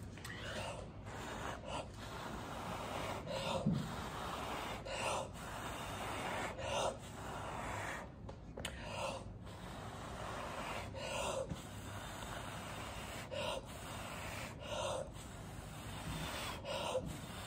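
A person blowing long steady breaths through the mouth onto wet pouring paint to spread it into a bloom, with a short sharp breath in every one to two seconds.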